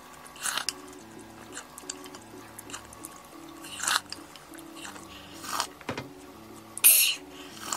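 A person slurping soupy broth with rice, first from a wooden spoon and then straight from the bowl: four short, loud slurps, the last and loudest near the end. Soft background music plays underneath.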